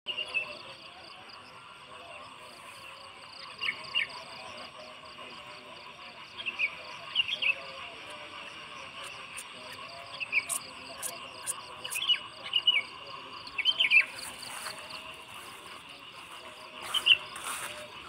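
Short bird chirps recurring every few seconds over a steady, fast-pulsing insect trill. A few sharp clicks sound near the middle.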